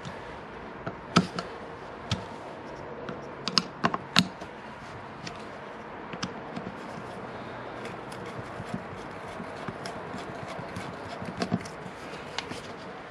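A JIS screwdriver turning small screws into an aluminium Mikuni carburettor bank: scattered light metallic clicks and taps of the tool and screws, with a few sharper ones about a second in and around four seconds in.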